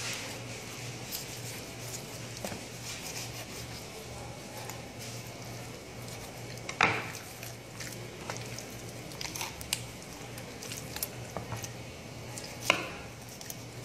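A knife and hands working a raw whole chicken on a cutting board while deboning it: scattered soft clicks, scrapes and wet handling noises, with two sharper knocks, one about halfway and one near the end, over a steady low hum.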